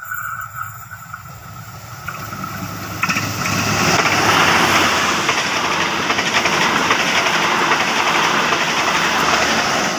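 CC 300 diesel locomotive approaching and passing close by, its engine getting louder until it goes by about three seconds in. The passenger coaches then roll past with a steady noise of wheels on the rails.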